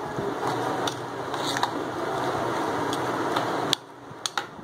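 A metal spoon stirring chicken pieces in a wet yogurt-and-spice marinade in a ceramic bowl. There is a steady stirring noise with a few sharp clinks of the spoon against the bowl, and the stirring noise cuts off abruptly near the end, followed by a couple more clinks.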